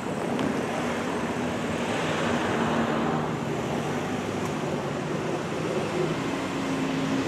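Road traffic: cars driving past, with a steady noise of tyres and engines.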